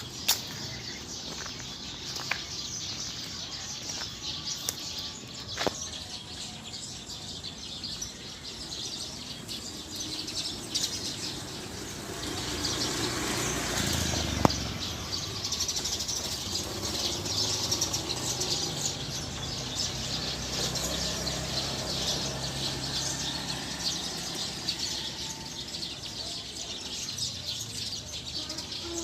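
A flock of Eurasian tree sparrows chirping together as they settle to roost in a tree. The chatter is dense and continuous and grows fuller about halfway through.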